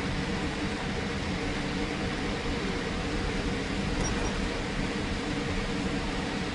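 Steady cabin noise inside a Boeing 787 taxiing: an even hiss from the engines and cabin air, with a faint steady low hum.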